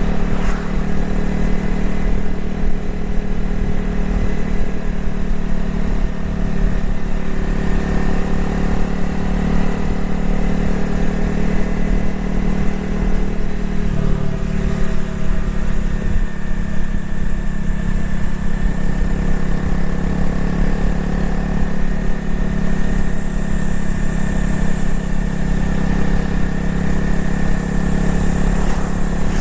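Honda CRF250L's single-cylinder four-stroke engine and exhaust running steadily under way, with a change in engine note about halfway through.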